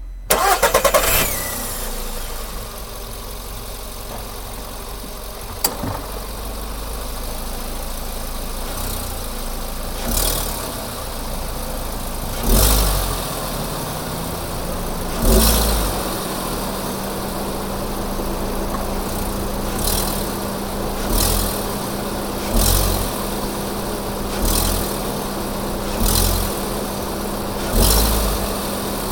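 Volkswagen Polo Sedan engine starting under the hood with a whistle at start-up, then idling steadily. From about a third of the way in, the throttle is blipped sharply again and again, quickening to about one blip every second and a half near the end; each blip brings a brief rustle from the engine bay, the fault being shown.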